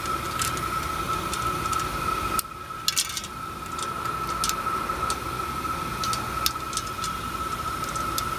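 Small sharp plastic clicks and scrapes at irregular intervals as fingers work the nozzle and cap off the top of an aerosol spray paint can. A steady high-pitched tone runs underneath throughout.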